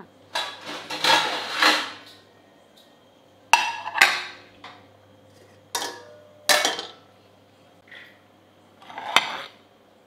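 Steel cookware and a serving spoon clinking and scraping as food is dished out onto a plate: a longer clatter in the first two seconds, then a string of separate sharp clinks about a second apart. A steady low hum runs underneath.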